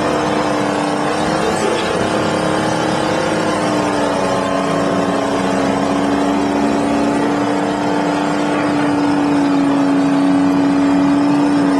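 Terex TS-24 motor scraper's diesel engines running hard under load as the bowl cuts and loads dirt. The engine note holds steady, sinking slightly in pitch, and grows a little louder near the end.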